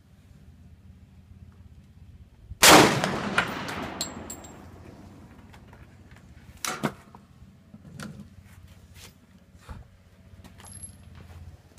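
One loud pistol shot about two and a half seconds in, its report echoing away over about a second and a half, followed by several fainter sharp cracks a few seconds apart.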